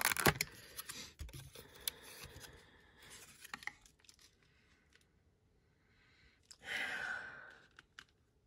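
Thin plastic film crinkling and crackling as it is peeled back from a Scentsy wax melt clamshell pack. Near the end comes one sniff at the opened wax.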